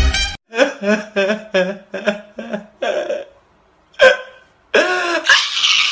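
A voice making a quick series of about six short hiccup-like sounds, then a louder one after a brief pause.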